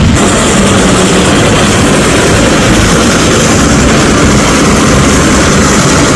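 Steady, loud rumble and rush of a moving train, heard from aboard the ride.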